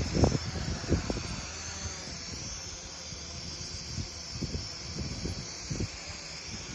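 Strong wind buffeting the microphone in irregular low rumbling gusts, with a few short low thumps near the start and around the middle. A faint wavering high whistle sits above it.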